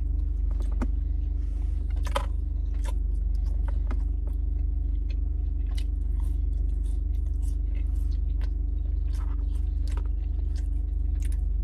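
Close-up eating sounds: garlic fries being bitten and chewed, with scattered short crunches and mouth clicks. The small plastic ranch cup is handled and its lid peeled at the start. All of it sits over a steady low hum.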